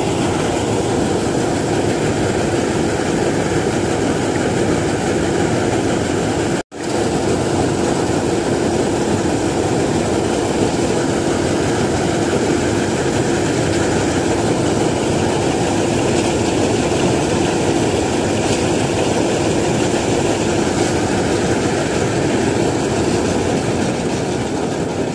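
Jaswant combine harvester running steadily, its engine and threshing machinery droning without a break as it unloads threshed paddy. The sound drops out for a split second about seven seconds in.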